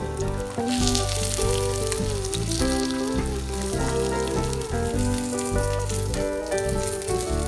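Sesame-crusted tuna steak searing in hot oil in a nonstick frying pan, a steady sizzle that grows louder about a second in as the fish is turned onto a fresh side. Background music plays throughout.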